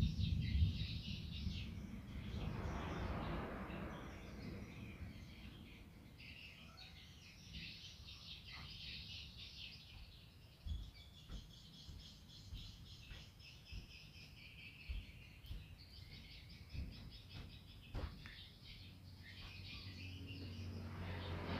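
Small birds chirping and twittering continuously in the background, with a few short clicks and snips of scissors cutting paper.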